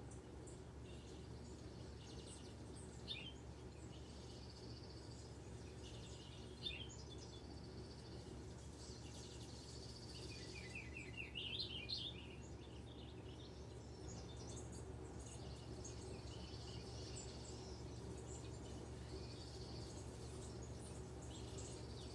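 Small songbirds chirping and trilling from a cat TV bird video playing on a screen, with a quick run of falling notes about halfway through, over a steady low hum.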